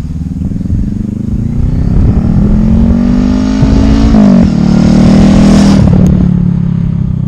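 A vehicle engine accelerating hard: its pitch climbs, drops sharply with a gear change about four seconds in, climbs and holds again, then falls away near the end. A rising hiss builds with it and cuts off suddenly about six seconds in.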